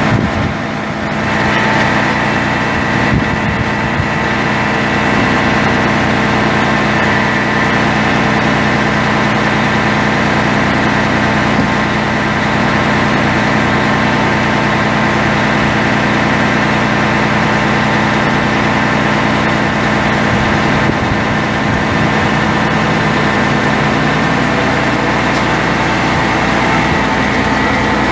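Mercedes MBE 4000 12.8-litre inline-six turbo diesel of a Freightliner M2 rollback truck running steadily at idle, dipping briefly about a second in.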